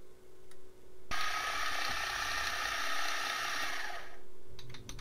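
Milling machine drilling into a 10 mm aluminium plate. The cutting noise starts suddenly about a second in and dies away about four seconds in, over a steady hum, and a few light clicks follow near the end.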